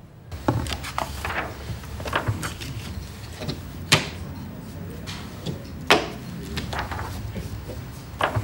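Large photo prints being handled and pressed against a wall: paper rustling and shuffling, with three sharp clacks, about four and six seconds in and near the end.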